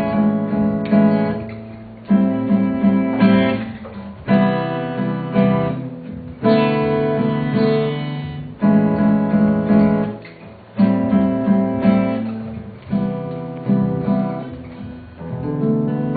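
Acoustic guitar strumming an instrumental intro, with a fresh chord struck about every two seconds and lighter strums between.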